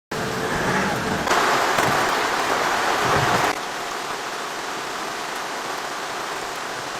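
Steady rain falling, an even hiss. It is louder and brighter for the first few seconds, then drops suddenly to a softer, steady patter about halfway through.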